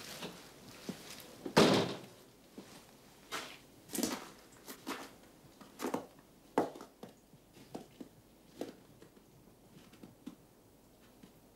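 A door shuts with a heavy thud, followed by a person's footsteps across a station porch and out onto snow. The steps grow fainter and sparser until they stop.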